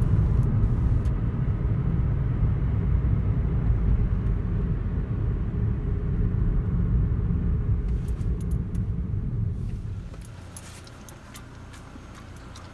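Steady low road and engine rumble inside a moving car's cabin. About ten seconds in it drops away, leaving a quieter cabin with a few sharp clicks.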